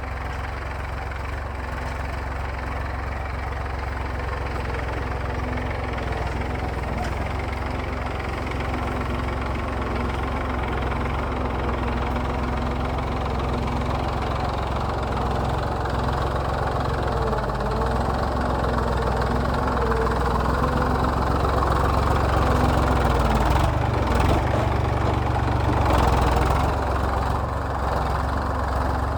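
Massey Ferguson tractor's diesel engine running steadily while ploughing. It grows gradually louder over most of the stretch, then eases back slightly near the end.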